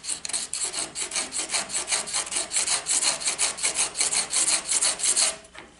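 A router bit's cutting edge stroked back and forth on a fine, about 1200-grit, water-wetted diamond sharpening file, honing the edge: quick, even scraping strokes, about five a second, that stop near the end.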